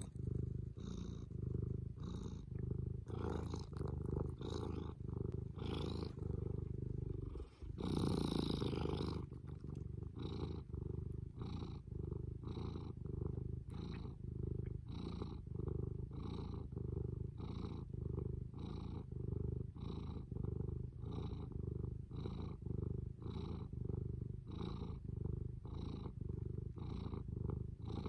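Tabby cat purring steadily close up, the purr swelling and easing with each breath about once a second. A brief louder, noisier stretch about eight seconds in.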